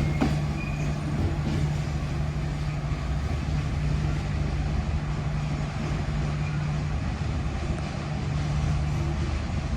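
Diesel locomotive pulling a train out of the station, its engine giving a steady low hum over the rumble of the train.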